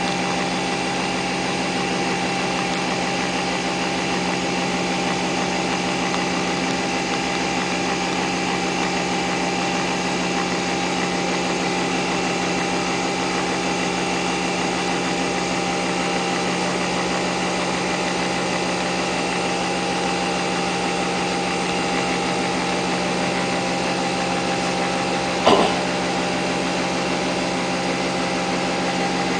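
Nespresso VirtuoLine brewer running steadily mid-brew, a constant motor whir with a fixed pitch as it spins the capsule to extract the coffee. A single short click near the end.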